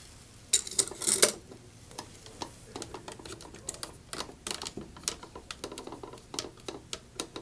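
Handling clicks and taps as a motor mounting shaft is fitted onto a wind monitor: a few louder knocks about half a second to a second in, then a run of light, irregular clicks.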